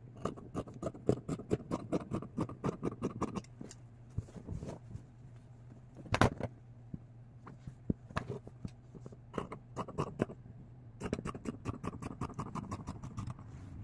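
Scissors snipping through cotton bandana fabric in quick runs of short crisp cuts, one run at the start and another near the end, with a few scattered snips and one louder click about six seconds in.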